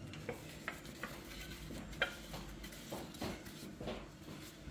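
Faint, scattered clinks and light knocks of kitchenware: a metal ladle, pot and glass jars being handled, with a sharper clink about two seconds in.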